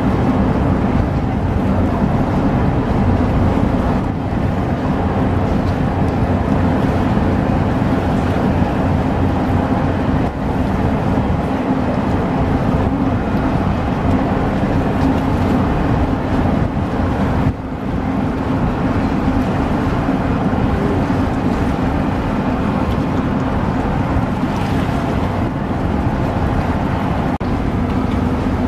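A boat's engine running steadily underway, a constant drone with a steady hum, mixed with wind on the microphone.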